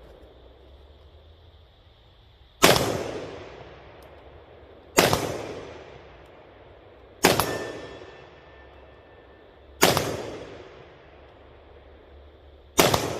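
SKS semi-automatic rifle in 7.62×39mm fired five times, single shots about two and a half seconds apart. Each shot is followed by an echo that dies away over a second or more.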